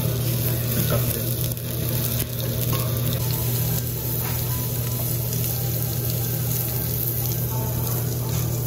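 Thick-cut pork belly sizzling on a tabletop Korean barbecue grill, an even hiss over a steady low hum, with a few light clicks as the pieces are turned with metal tongs.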